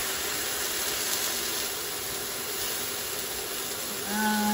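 Pork chops sizzling in hot oil in a cast iron skillet, a steady hiss. About four seconds in, a steady low hum comes in, like a held 'mmm'.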